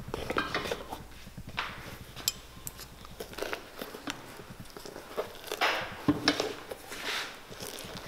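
Cobbler's pincers gripping and working at the crepe rubber sole of a Clarks Wallabee boot: a scattering of small, irregular metal clicks and scrapes as the tool is handled, with the boot set on an iron last.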